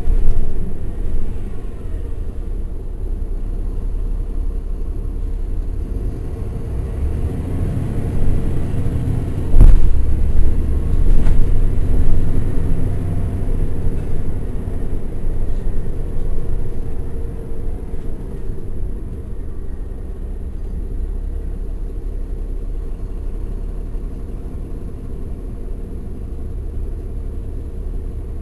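Caterpillar C13 ACERT diesel engine of a NABI 416.15 transit bus, heard on board from the rear seats as the bus drives: a steady low rumble. It swells louder for a few seconds around the middle, with a sharp knock as it does, then eases to a quieter, even level for the last third.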